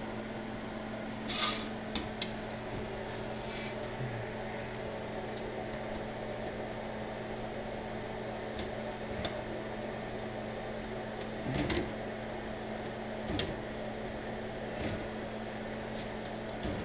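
A steady electrical hum with a few light clicks and taps scattered through, from handling the plastic louver piece while welding it.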